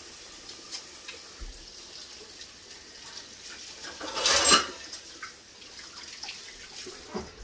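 Kitchen sink tap running while hands are washed under it, with a louder rush of water lasting about half a second around four seconds in and a few small knocks near the end.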